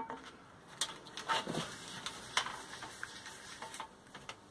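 A few light, scattered clicks and knocks of objects being handled and set down, over faint room noise.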